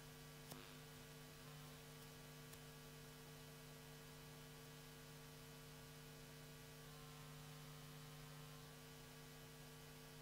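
Near silence: a faint steady electrical hum with low hiss, and one faint click about half a second in.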